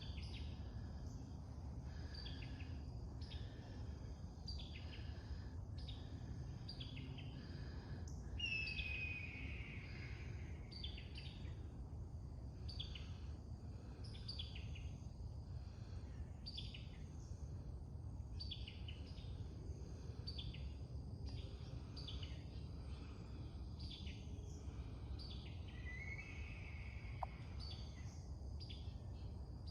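Wild birds singing: short high chirps repeating about once a second, with a longer sliding whistle about nine seconds in and again near the end, over a steady low outdoor rumble.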